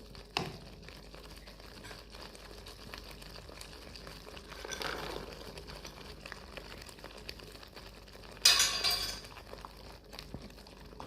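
Cooking sounds at a saucepan as green peas go into a masala gravy: light clinks of a utensil against the pan, and a short loud rattle about eight and a half seconds in.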